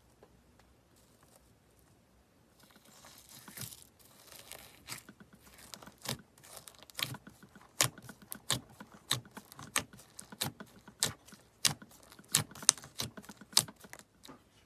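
Slime being squeezed and pressed by hand: a soft crackling a few seconds in, then a run of sharp popping clicks, one or two a second, the air pockets in the slime bursting.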